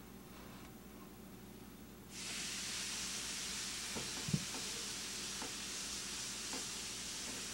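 Steak sizzling on a hot electric countertop grill. The sizzle starts suddenly about two seconds in as the meat goes onto the plate and then holds steady, with a few light knocks as the pieces are placed.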